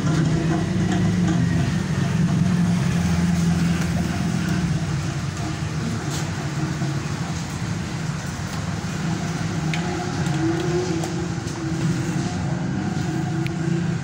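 Steady low mechanical rumble, a little weaker after about four seconds, with a couple of faint clicks.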